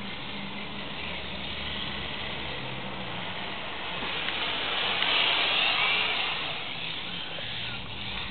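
1/10-scale RC drift car running on asphalt, its motor and tyres getting louder as it comes near about five seconds in, then fading.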